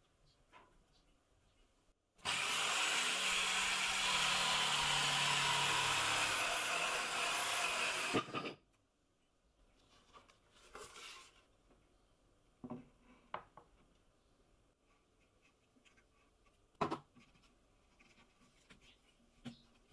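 Circular saw spinning up and cutting through a board for about six seconds, with a steady high whine over the cutting noise, then cutting out abruptly. A few light knocks of wood being handled follow.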